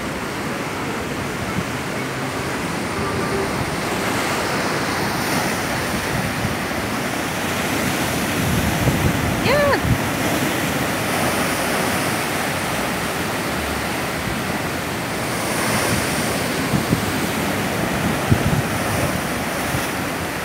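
Rough sea surging and breaking against shoreline rocks: a continuous rushing of surf that swells louder about eight to ten seconds in and again near the end, with a few sharp thumps as the bigger waves hit.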